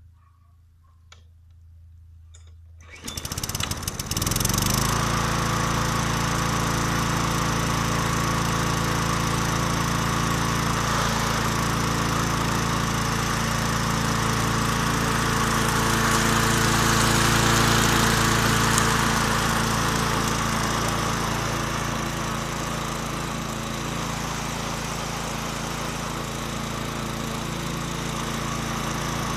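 Bolens petrol mulching lawn mower's small engine starting about three seconds in, after a few faint clicks, then running steadily as the mower is pushed over grass. Its loudness sinks somewhat as it moves away and rises again as it comes back.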